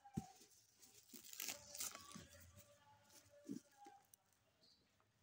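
Clear plastic wrapping on a parcel crinkling and crackling faintly in irregular bursts as hands handle it, after a sharp click at the start.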